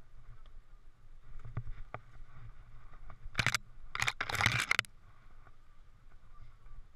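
Mountain bike riding a rough dirt singletrack, heard from a helmet-mounted camera: low rolling rumble with a few sharp clicks and rattles, and three loud rasping bursts about halfway through.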